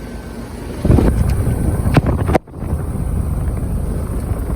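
A 2019 Rheem Classic RA14 4-ton central air conditioner's outdoor unit is running with a steady fan and compressor noise. About a second in, a loud rush of air hits the microphone. The sound cuts out for a moment about two and a half seconds in.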